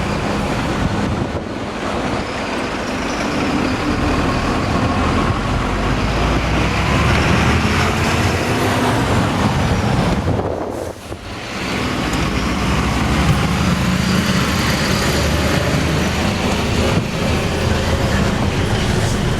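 Loud, steady engine and travel rumble of a large vehicle, briefly dropping away about eleven seconds in.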